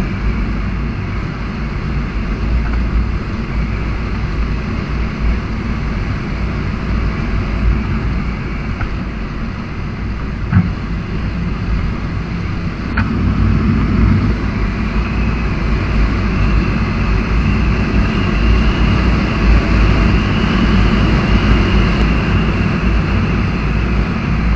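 Motorcycle riding at steady speed on an open road, its engine and tyre noise under heavy wind rush on the microphone. It gets a little louder about halfway through, and there is a short knock about ten seconds in.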